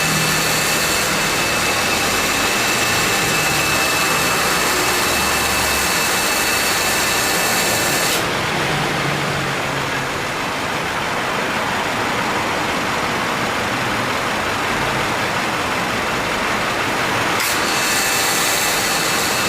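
2014 Subaru Forester engine running with its air-conditioning compressor cycling on and off. A high hiss with a steady whine cuts out suddenly about eight seconds in and comes back near the end, as the compressor engages and disengages. This is a compressor revived after seizing, which the owner says still makes an intermittent abnormal noise.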